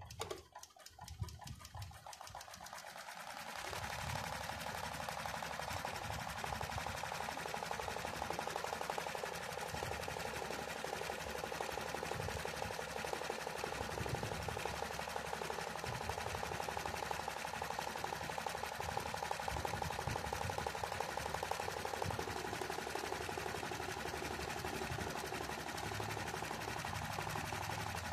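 Janome Secio 8200 sewing machine stitching a zigzag line for free-hand embroidery: rapid, even needle strokes over a steady motor whine. It starts slowly and picks up to full speed about three and a half seconds in.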